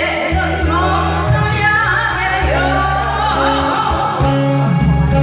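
A singer singing a melody with vibrato over a backing track of sustained bass notes and a steady hi-hat beat.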